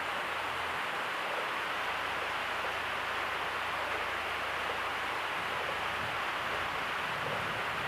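Steady hiss of the recording's background noise, with no speech.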